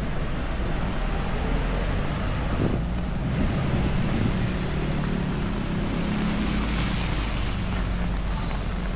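Heavy rain falling with a steady hiss. A vehicle's low hum runs through the middle.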